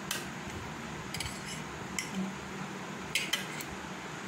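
A steel fork clinking against a ceramic bowl a few times, roughly a second apart, as it turns chicken pieces in a yogurt marinade.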